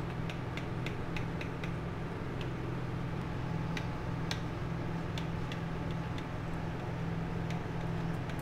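A knife clicking against the plate as it cuts through soft steamed dhokla: light, irregular clicks, several a second at first and fewer later, over a steady low hum.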